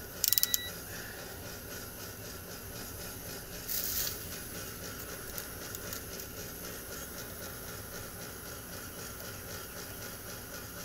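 A quick run of four sharp electronic beeps just after the start, from the technician's meter or calculator, over the steady mechanical running noise of a gas pack unit with a faint regular ticking. A brief hiss comes about four seconds in.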